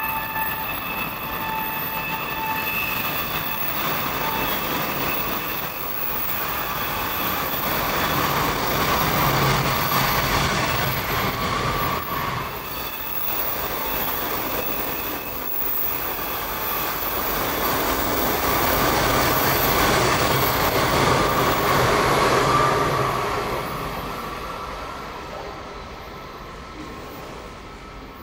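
E4 series double-decker Shinkansen running slowly through a station: wheels rumbling on the rails with a steady whine from the running gear. The sound swells twice and fades away over the last few seconds.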